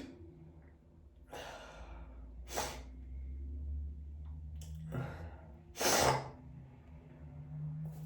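A person breathing in and out between sneezes, with a long drawn-in breath about a second and a half in, then one sharp, loud sneeze about six seconds in.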